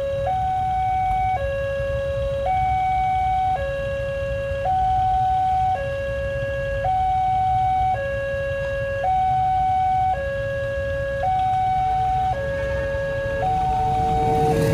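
Railway level-crossing warning alarm sounding an electronic two-tone high-low signal, each tone held about a second, warning that a train is approaching. Idling motorcycle engines rumble underneath, and near the end a lower steady tone from the approaching train's horn joins in.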